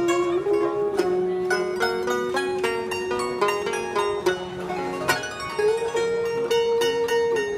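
Vietnamese instrumental music on plucked string instruments: a stream of quick plucked notes under a held melody line that steps and slides between pitches.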